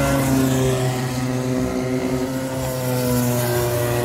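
Several Rotax Micro Max 125 cc two-stroke kart engines buzzing around the track together. Their engine notes sit at slightly different pitches and slowly fall and rise as the karts lift off and accelerate through the corners.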